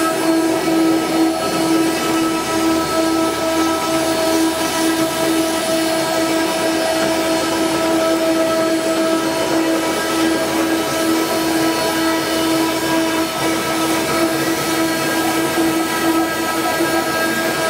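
CNC wood router running, its two water-cooled 2.2 kW spindles spinning at speed: a loud, steady whine that holds one pitch, over a constant machine noise.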